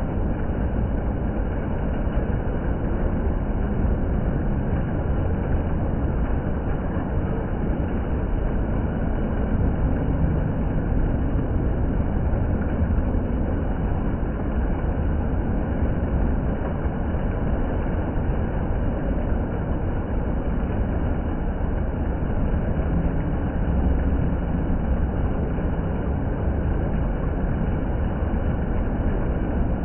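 Indoor water fountain running, a steady rush of falling and splashing water with no change throughout.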